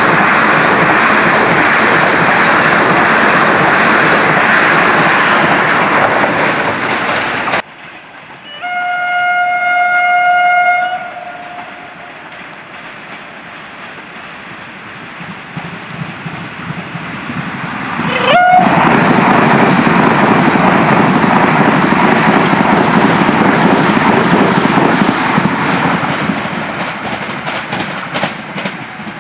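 Hyundai Rotem HRCS2 electric train running past at speed, a loud rushing rumble of wheels on rails. It is followed by one long horn blast of about two seconds, then a short rising horn toot, and the loud rumble of the train running on the rails again, fading near the end.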